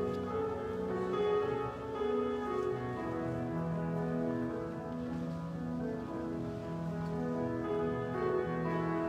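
Slow instrumental church music on a keyboard instrument: held chords under a melody, with notes changing about once a second.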